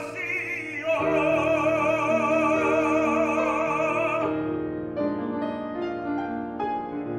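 Classical tenor singing a held note with wide vibrato over grand piano accompaniment. The voice stops about four seconds in and the piano carries on alone.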